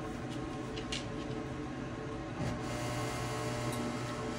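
Grand Teton pellet stove running, its exhaust fan giving a steady hum. It gets a little louder about halfway through.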